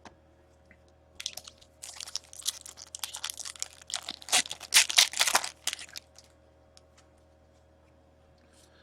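Crinkly card packaging handled and rustled in irregular bursts for about five seconds, loudest just past the middle.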